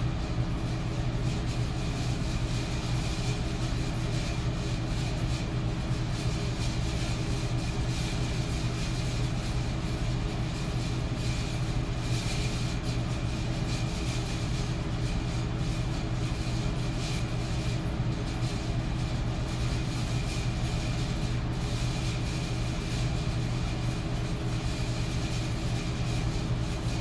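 Metal electric fan running steadily: even air noise over a low motor hum, with a faint steady high tone.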